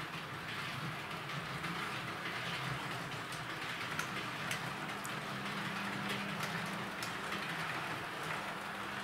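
Electric model train running along track laid on cork: a steady motor hum and wheel rumble on the rails, with occasional light clicks as the wheels roll along.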